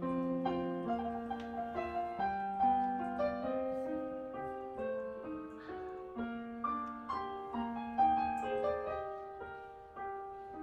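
Background piano music: a melody played over held lower notes, fading out near the end.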